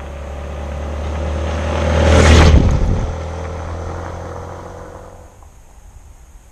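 A motor vehicle driving past: its steady engine hum swells to a loud peak about two seconds in and then fades away.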